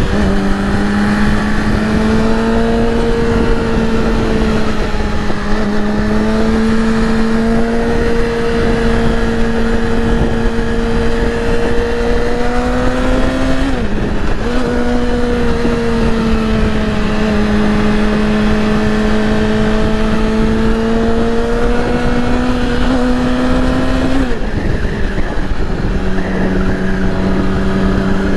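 A 2008 Yamaha R6's inline-four engine pulls steadily under way over a steady rush of wind and road noise, its pitch slowly rising. About halfway through it briefly drops and recovers, as at a gear change, then climbs again. Near the end it falls to a lower, steady pitch.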